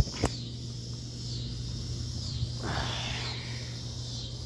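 Crickets chirping steadily, with a sharp click about a quarter second in and a short breathy hiss about three seconds in.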